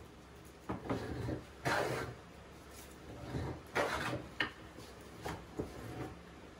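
Homemade wooden fore plane cutting shavings from a board in several short strokes, each a rough swish of the iron through the wood, with a few knocks as the plane is drawn back and set down. The cut is heavy for its 2-inch iron, and the plane sometimes sticks at the end of a stroke.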